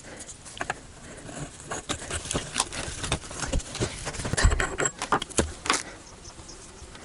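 Hands working plumbing flax onto a threaded pipe fitting: irregular rustling and small clicks, with one dull knock about four and a half seconds in.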